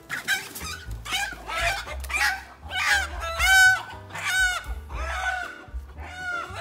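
Chickens squawking and clucking in a rapid run of short calls, several a second, over background music.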